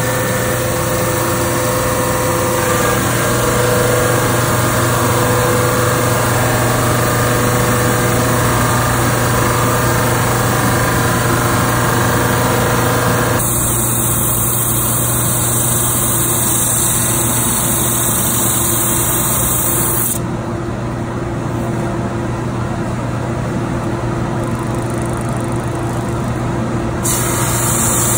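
CWI SandX 26-inch dual drum sander running steadily, a constant motor hum, as wood is carried through under its sanding drums on the conveyor belt. The sound changes abruptly a few times, about 13 and 20 seconds in.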